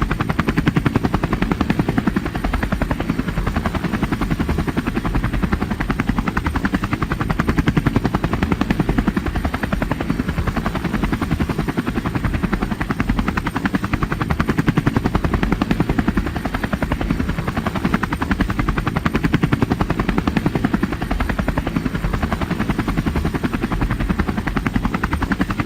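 Toy police helicopter's battery-powered rotor sound, a loud, rapid, steady chopping clatter that runs without a break.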